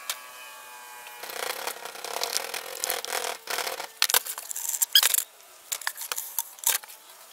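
Molding sand being packed and rubbed by a gloved hand into a wooden mold flask around the gate and riser pipes: a gritty scraping, then a run of sharp taps and knocks in the last few seconds.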